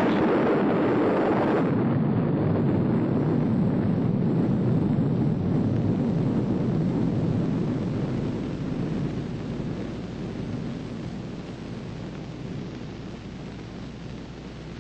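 Atomic bomb tower-shot detonation: a long, deep rumbling roar from the blast that holds for several seconds, then slowly fades over the second half.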